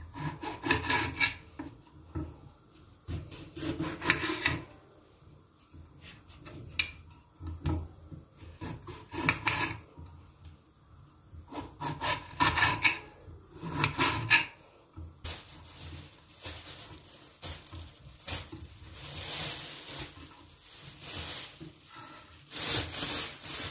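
Kitchen knife cutting lemons on a glass cutting board: runs of sawing strokes with sharp clicks of the blade on the glass, coming in several bursts a few seconds apart. From about the middle on, softer scraping and rustling takes over.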